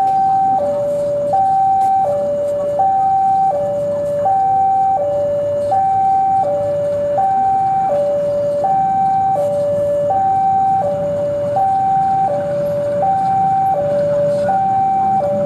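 Electronic two-tone warning alarm alternating evenly between a higher and a lower tone, each held about 0.7 s. Beneath it runs a diesel locomotive's low rumble, growing slightly near the end.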